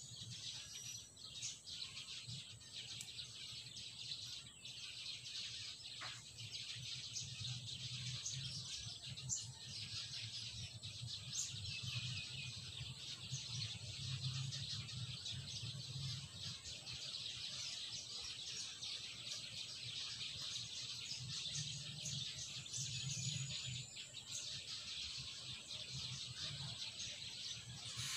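Garden ambience: birds chirping now and then over a steady high hiss, with a low rumble underneath and a few faint clicks.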